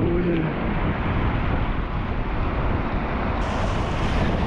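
Whitewater rapids rushing and splashing around an inflatable kayak, with wind buffeting the camera microphone.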